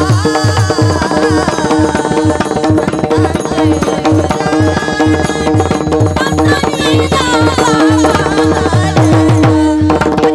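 Warkari bhajan music: women singing an abhang to clashing taal hand cymbals, a fast hand-drum rhythm and the steady drone of a veena.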